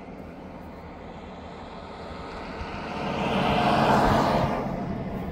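A road vehicle passing by: its tyre and engine noise builds to a peak about four seconds in, then fades.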